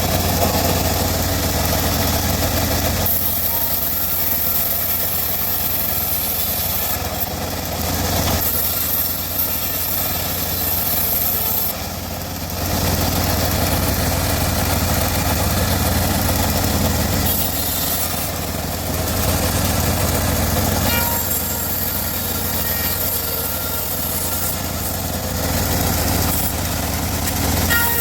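Homemade band sawmill running: a steady motor drone under a rushing noise that swells and eases every few seconds as the blade cuts through teak.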